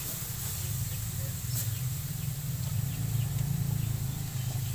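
Ground meat sizzling softly in an aluminium wok over a low steady hum, with a few faint, short bird chirps.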